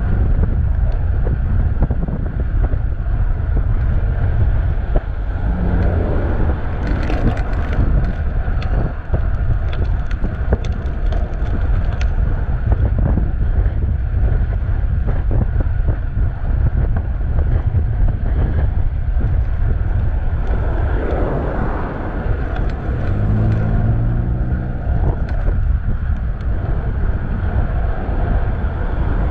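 Wind buffeting a chest-mounted action camera's microphone on a moving bicycle, a steady low rumble, with road traffic passing alongside. About three-quarters of the way through, a motor vehicle's engine passes close.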